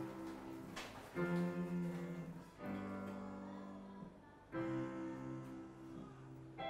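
Piano played slowly: full chords struck one after another, each left to ring and fade, a new chord about every one and a half to two seconds.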